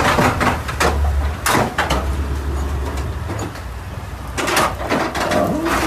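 Fiberglass boat hulls knocking and scraping against each other in a collision, in several loud hits, over a low rumble that stops about three seconds in.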